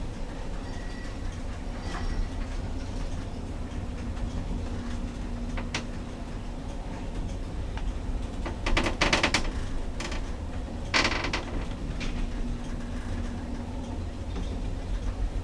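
Passenger lift machinery: a steady low rumble with a faint hum. There is a click about six seconds in, and two short, louder rattling noises past the middle.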